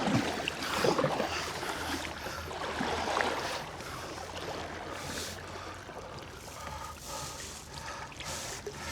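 Water splashing and lapping against a kayak's hull as it moves off on the river. It is livelier for the first few seconds, then settles to a quieter, steady trickle and gurgle.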